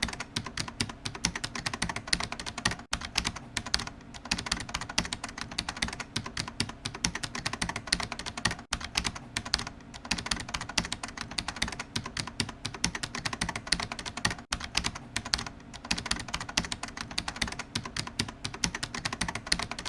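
Computer keyboard being typed on rapidly and continuously, a dense stream of key clicks with a very short break about every six seconds.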